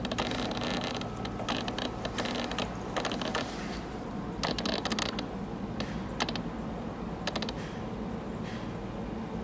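Aquarium pump running with a steady low hum, overlaid by irregular clicking and crackling.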